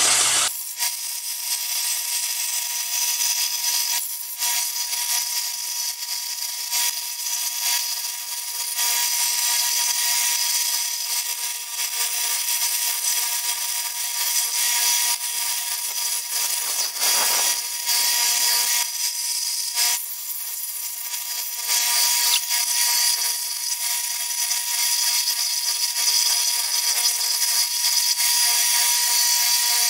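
Bench belt sander running as thin wrought iron bars are held against the belt to clean them up: a steady grinding with the motor's hum underneath, easing off briefly a few times as the bars are lifted and moved.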